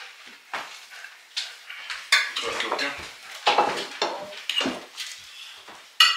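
Cutlery clinking and scraping against plates, in irregular knocks and scrapes, with a sharp clink just before the end.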